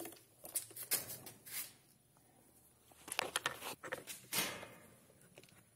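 Faint clicks, taps and scrapes of a screwdriver and metal parts being handled on a chainsaw. They come in two spells, with a short lull about two seconds in.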